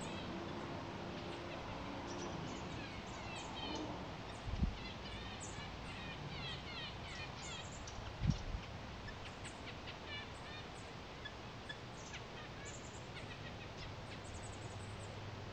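Small birds chirping and calling repeatedly, with two short, low thumps about four and a half and eight seconds in.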